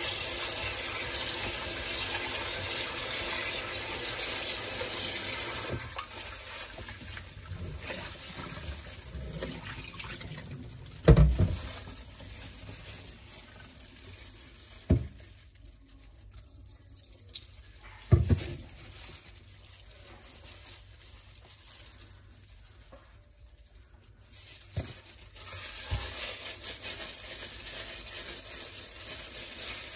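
Kitchen tap running into a glass bowl in a stainless steel sink while gloved hands rinse raw chicken, stopping about six seconds in. Quieter handling follows, with three sharp knocks, and running, splashing liquid comes back near the end.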